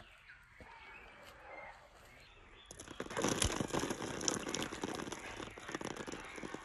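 Water splashing and pattering onto a broad banana leaf, a dense spatter of drops that starts about three seconds in and keeps on.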